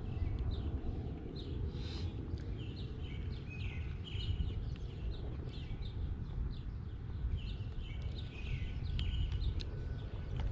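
Small birds chirping again and again, short falling calls, over a steady low background noise.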